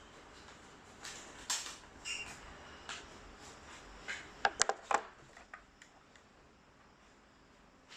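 Light mechanical clicks and clacks from the airsoft gun being handled: single clicks spread over the first few seconds, then a quick cluster of four sharper clacks a little past halfway, then a few faint ticks.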